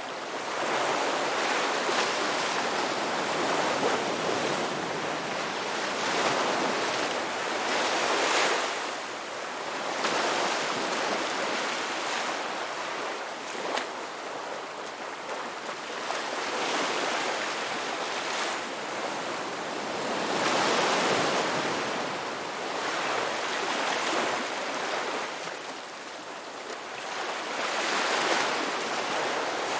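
Ocean waves breaking and washing on a shore, a continuous rushing surf that swells louder every few seconds as each wave comes in.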